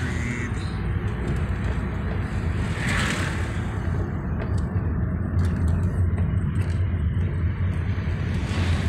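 Car interior while driving: steady low engine and road drone, with a brief hissing swell about three seconds in.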